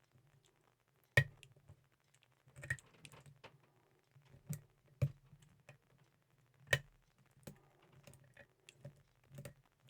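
Lock pick and tension wrench working the pin tumblers of an Ace 54541 brass padlock: scattered, irregular metallic clicks and taps, the sharpest about a second in and near seven seconds.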